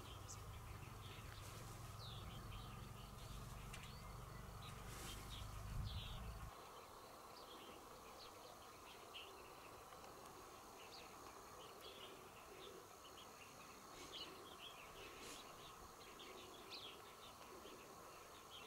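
Faint open-air ambience with many short, high chirps of small birds. A low rumble runs under the first six seconds and stops abruptly.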